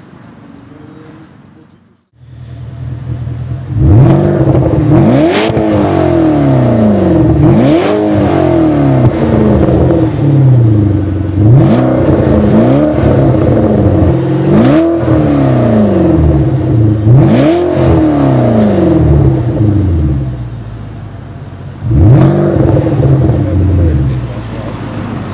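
Porsche Panamera Turbo's twin-turbo V8, breathing through a TechArt aftermarket exhaust, revved repeatedly while standing still. About seven quick blips climb and fall back in pitch, with the engine idling between them.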